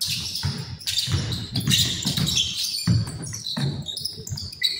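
Basketball dribbled on a hardwood gym floor: a run of irregular bounces, about two a second, with players' shoes squeaking on the court between them.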